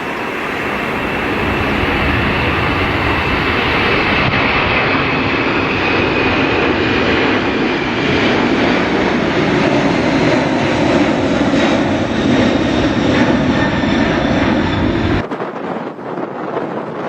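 Airliner's engines passing close by: a loud, steady rush with a whine that slowly falls in pitch. It cuts off suddenly about fifteen seconds in, leaving wind noise on the microphone.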